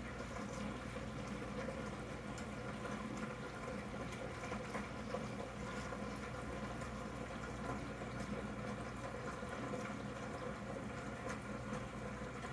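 Aquarium air stone bubbling steadily, a continuous stream of small bubble pops at the surface, with a low steady hum underneath.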